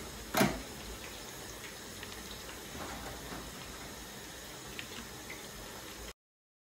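Potatoes frying in hot oil: a steady sizzle, with one brief, louder sharp sound about half a second in and a few faint ticks. The sound cuts off abruptly about half a second before the end.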